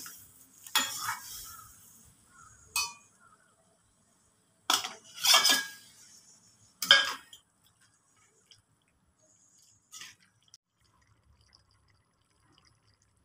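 A handful of separate metal clinks and clatters of a cooking spoon against a metal kadai, with quiet between them. The loudest come a little past the middle, and the last is a faint one near the end.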